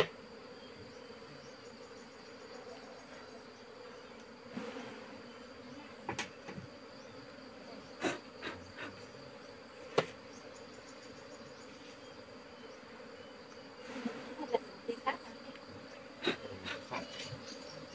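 Honeybees buzzing steadily around an open hive, with scattered sharp clicks and knocks as wooden hive frames are lifted and handled.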